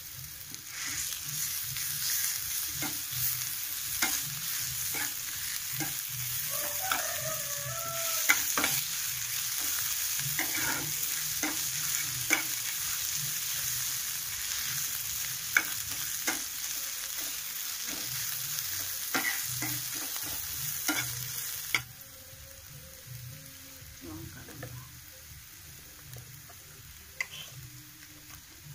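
Onion, red chillies and onion-garlic paste sizzling in oil in a non-stick frying pan while a spatula stirs and scrapes them, with scattered clicks and taps of the spatula on the pan. About three-quarters of the way through, the sizzle drops off sharply, leaving quieter stirring.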